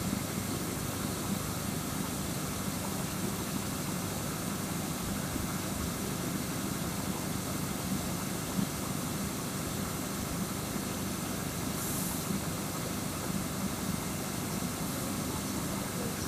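Diesel-electric locomotive idling at the head of a standing passenger train: a steady, unchanging low engine drone.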